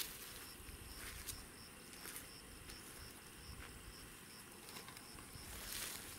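Crickets chirping in the evening field: a steady run of short, high chirps, several a second, with a few faint clicks.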